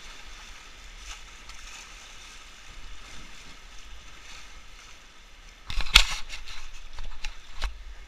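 River rapids rushing past an inflatable raft, a steady hiss of moving whitewater. From about six seconds in comes a loud cluster of sharp hits lasting under two seconds, the strongest at its start.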